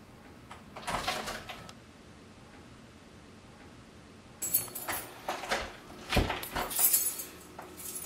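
Keys jangling and a door being handled: a rustle about a second in, then, from a little after four seconds, a run of clicks, knocks and rustles, the loudest knock a little after six seconds.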